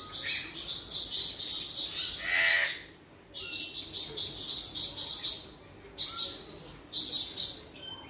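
Parrots calling in an aviary: a run of short, high, harsh calls repeating several times a second, with one louder, drawn-out squawk about two seconds in.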